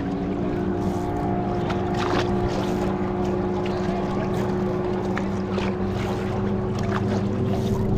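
Small boat motor running steadily at a constant pitch, with water splashing against the hull as the boat moves over choppy sea.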